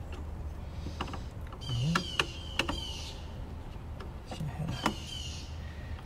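Screwdriver working the terminal screws of a circuit breaker while wire leads are handled: scattered small clicks and scrapes over a steady low hum.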